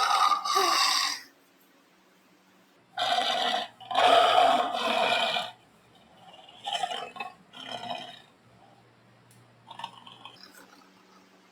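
Cartoon dog's roaring sound effects, a series of rough bursts: two loud ones at the start and two more about three seconds in, then shorter, fainter ones. A faint steady hum from the old film soundtrack sits between them.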